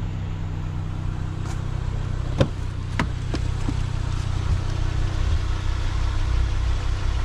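Car engine idling steadily, with two sharp knocks about two and a half and three seconds in.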